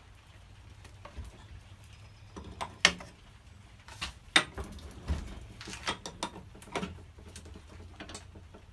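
Adjustable steel wrench working brass fittings on a fuel lift pump held in a bench vise: irregular metallic clicks and clinks as the wrench is set on, turned and taken off. The two sharpest knocks come about three and four and a half seconds in.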